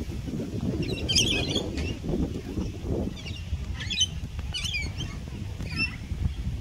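Birds calling in several short bursts of squeaky chirps, over a steady low rumble.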